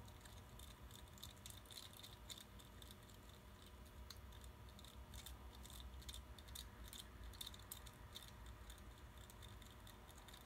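Faint, irregular clicking and scraping of a small plastic measuring spoon against a plastic measuring cup, stirring sodium tetraborate (borax) powder into warm water to dissolve it.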